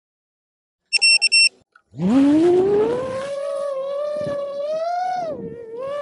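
Outro sound effect: a brief high beeping chime about a second in, then from about two seconds a long siren-like tone that glides up in pitch and then wavers up and down.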